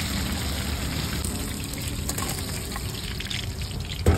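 Battered momos deep-frying in a wok of hot oil: a steady sizzle, with a single knock near the end.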